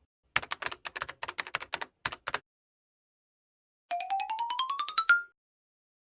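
Computer keyboard typing clicks, a quick irregular run of key strikes that stops after about two seconds. After a pause of about a second and a half comes a quick rising run of a dozen or so pitched notes, ending on a short held note.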